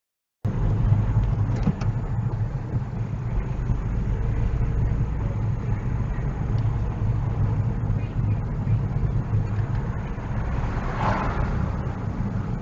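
Steady low rumble of a car on the move, heard inside the cabin: engine and road noise. It cuts in suddenly from dead silence just after the start, with a short swell of hiss near the end.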